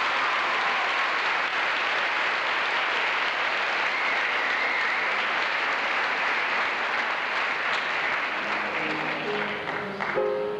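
Audience applauding steadily. About eight seconds in, music begins softly beneath the clapping.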